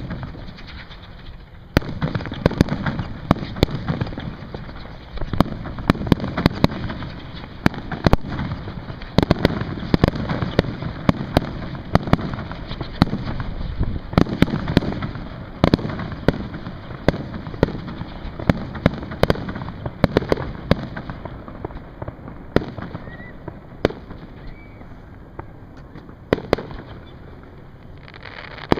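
Fireworks going off: a dense run of sharp bangs and crackles starts suddenly about two seconds in, then thins out over the last several seconds.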